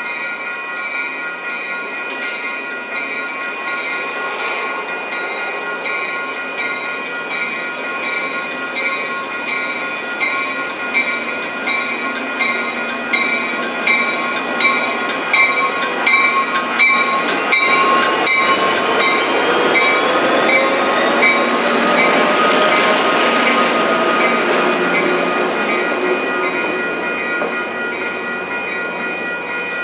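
Coaster commuter train's diesel locomotive running into the station and passing close by, with bilevel coaches rolling behind. A bell rings steadily about twice a second during the approach. The train is loudest as the locomotive goes by, a little past two-thirds of the way through.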